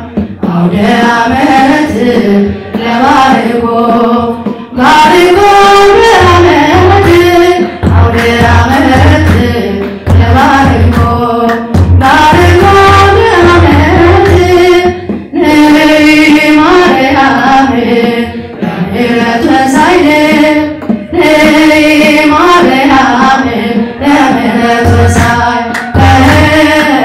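A woman singing an Ethiopian Orthodox hymn (mezmur) into a microphone, in long melodic phrases with short breaks between them.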